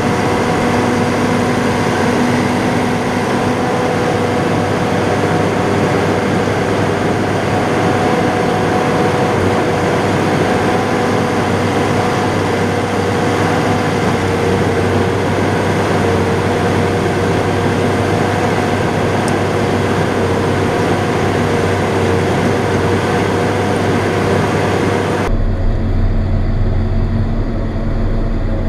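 John Deere 7800 tractor's six-cylinder diesel engine running steadily, heard from inside the cab, with a constant hum of engine tones over a hiss. Near the end the sound changes abruptly: the hiss falls away and a deeper rumble takes over.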